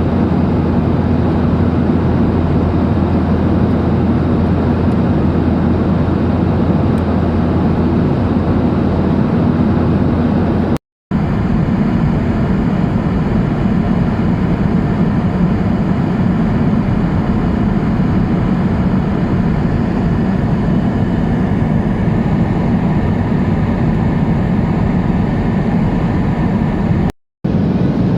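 Steady cabin noise of a Boeing 737-800 in flight: a low drone from its CFM56 jet engines mixed with the rush of airflow. It cuts out to silence twice, briefly, about eleven seconds in and near the end.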